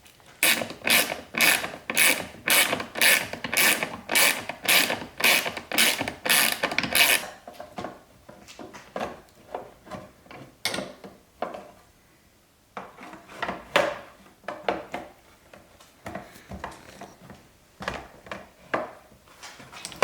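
Ratcheting clicks in a run of about fourteen even strokes, roughly two a second, then slower scattered clicks and rubbing of small parts.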